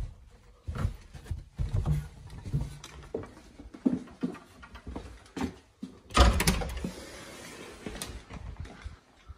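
Footsteps on wooden stairs and floorboards, a dull thud every half second to a second. About six seconds in comes a louder knock followed by a couple of seconds of rustling hiss.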